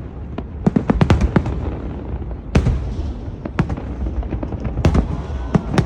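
Fireworks display: a rapid cluster of sharp bangs and crackles about a second in, then single loud booms about a second apart, over a steady low rumble.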